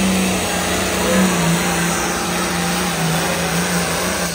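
Modified diesel pulling tractor's engine running loud and flat out while dragging the weight-transfer sled down the track, a steady heavy drone whose pitch dips a little about a second and a half in.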